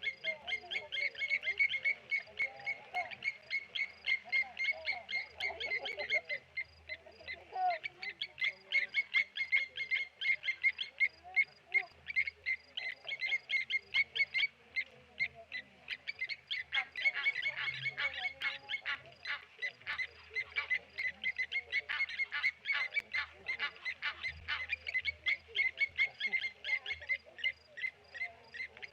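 Blacksmith lapwings giving rapid, repeated metallic 'tink' alarm calls, several a second, while mobbing a tawny eagle.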